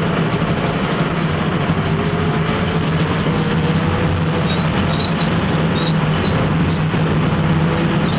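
T-34-85 tank's V-2 V12 diesel engine running steadily and loud, with a faint whine drifting up and down above it. A few short high metallic clinks come in the second half.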